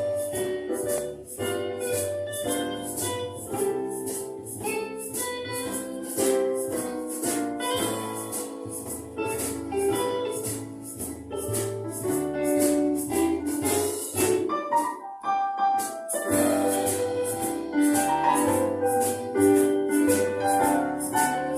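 Live band playing an instrumental passage: keyboard chords and bass over a steady shaker rhythm. About fifteen seconds in, the band stops for about a second and then comes back in.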